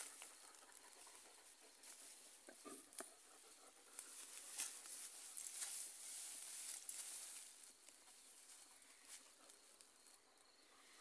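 Tall grass rustling and swishing, with scattered faint crackles, as a dog and the person filming move through it. It quietens over the last few seconds.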